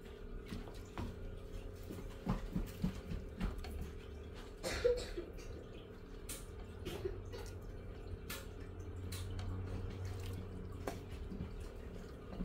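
Soup being ladled into a bowl: broth pouring and dripping, with scattered light knocks and clinks of the ladle against the pot and bowl.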